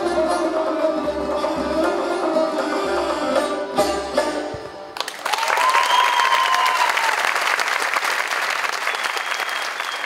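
A Persian trio of tar, ney and tombak plays the closing phrase of an improvised piece: plucked lute, end-blown reed flute and goblet-drum strokes. About halfway through, the music stops and the audience breaks into loud applause.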